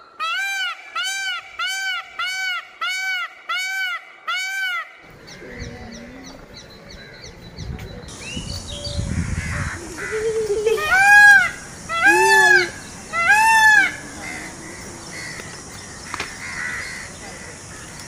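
Peacock (Indian peafowl) calling: a quick run of about nine short nasal calls, two a second, then after a pause three louder calls about a second apart.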